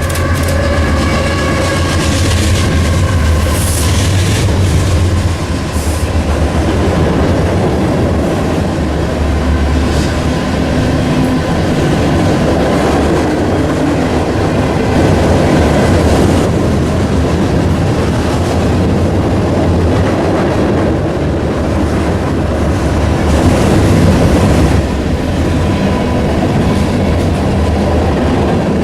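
Freight train cars rolling past close by: a loud, steady rumble of wheels on the rails, with a few sharp wheel clicks near the start.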